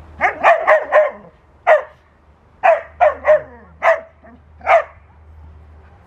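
A Laika dog barking in short, sharp yaps: four in quick succession in the first second, then about six more spaced out over the next four seconds.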